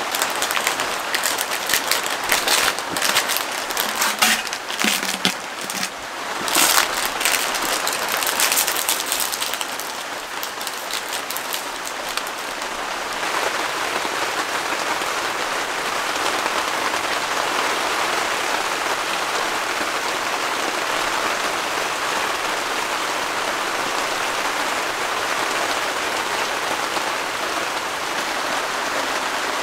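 Rain falling steadily, heard as an even hiss. For roughly the first twelve seconds, irregular sharp crackling clicks sound over it, then the rain carries on alone.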